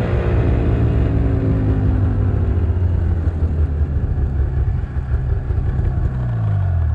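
Arctic Cat Bearcat 570 XTE snowmobile's two-stroke engine running as the machine slows and pulls up, its pitch dropping near the end as it winds down.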